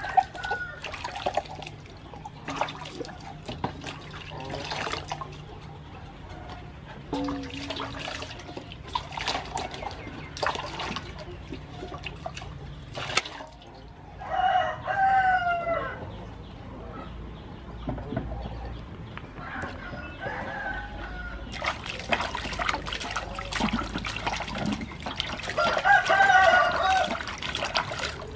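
Water splashing in a metal basin as whole pumpkins are washed by hand, with a rooster crowing twice, about halfway through and again near the end.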